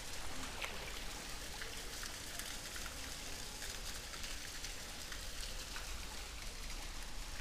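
Pool water splashing and trickling as seals swim at the surface: a steady hiss flecked with small crackling drops.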